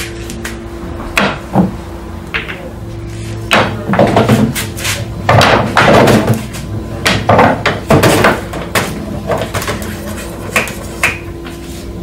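Sinuca (pool) cue tip striking balls, with the balls clicking together and knocking against the table's cushions: an irregular series of sharp clicks and knocks over a steady low hum.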